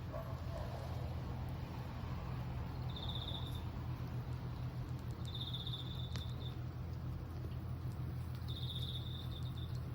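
A cricket singing: three short pulsed chirping trills, each under a second, a couple of seconds apart, over a steady low hum.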